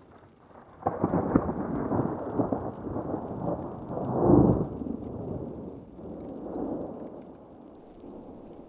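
Thunder over falling rain: a sharp crackling clap about a second in rolls into a louder deep rumble near the middle, swells again briefly, then fades away.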